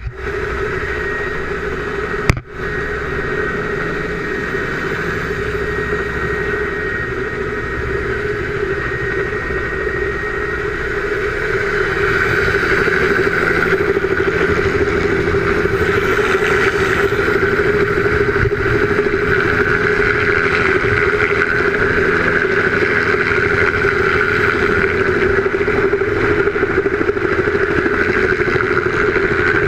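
Helicopter hovering just above the ground, its engine and rotor running steadily, heard close up at the open cabin door. It grows louder about twelve seconds in, as the camera moves out onto the skid below the rotor.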